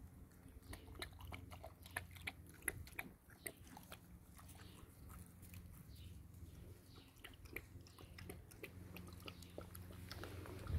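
Faint, irregular crunching and clicking of a puppy chewing.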